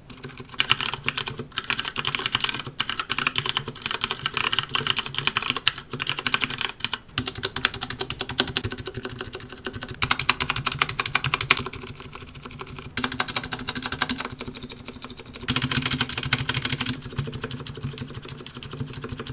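Continuous typing on an Ajazz Zinc 65% mechanical keyboard with Cherry MX Brown switches, a dense stream of key clicks with two louder, faster bursts midway and later on. The stabilizers have been hand-lubed, which helps but does not remove their rattle, and every key sounds a little scratchy.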